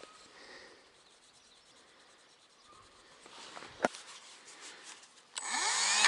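A blade cutting into an irrigation pipe. After some quiet handling rustle and a single sharp click about four seconds in, a short scraping squeal comes near the end as the blade bites, and the blade turns out to be the wrong one for the cut.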